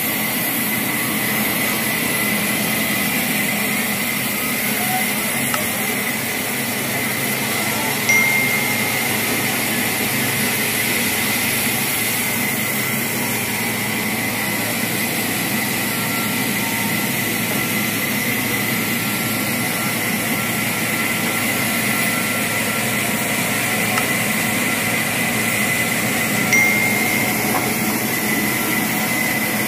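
Steady mechanical running noise with a constant high whine, broken by two short sharp sounds, one about eight seconds in and one near the end.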